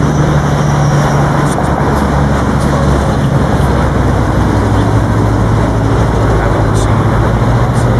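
A motor vehicle's engine running steadily as a low drone, its pitch dropping slightly about three seconds in.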